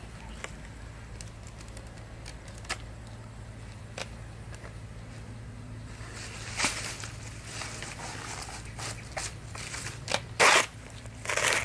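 Fibrous banana leaf sheath being cut with a knife and torn away from the plant's trunk by hand: a few light clicks at first, then crackling tearing that grows louder in the second half, loudest in two strong rips near the end.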